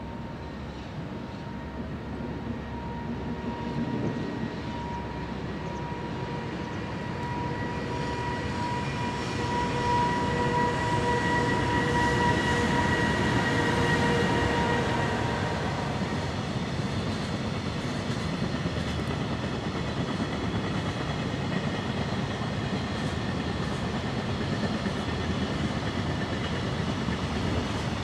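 A container freight train hauled by two electric locomotives, an EH500 and an EF66, approaches and passes on a river bridge. A steady whine rides over the rumble and is loudest about halfway through as the locomotives go by, fading a few seconds later. The wagons then keep rolling past with a steady rumble.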